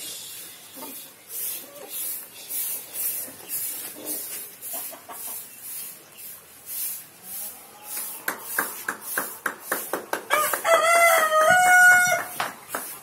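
A rooster crowing once, a long call of about two seconds near the end and the loudest sound here. Beneath it, steady rhythmic footsteps of flip-flops scuffing on a sandy dirt path.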